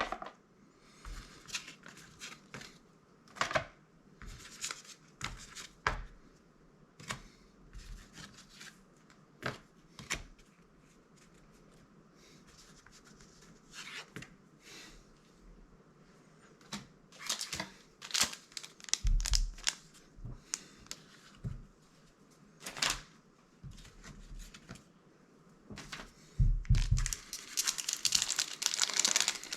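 Magic: The Gathering cards being handled and flicked through, with scattered short clicks and rustles. About three seconds before the end, a booster pack's wrapper is torn open and crinkles loudly.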